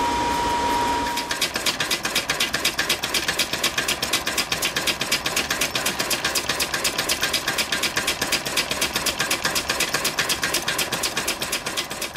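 Homemade coal-fired steam engine: a steady hiss of escaping steam with a thin whistling tone, then from about a second in the engine runs with fast, even exhaust chuffs, about eight a second.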